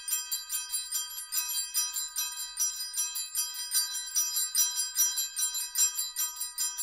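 Rapid, even high-pitched jingling of small bells, about five or six shakes a second, thin with no low notes.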